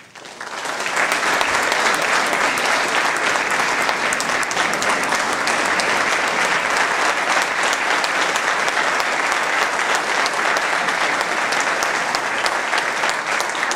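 Audience applauding: a sustained round of clapping that swells up within the first second, holds steady, and begins to die down near the end.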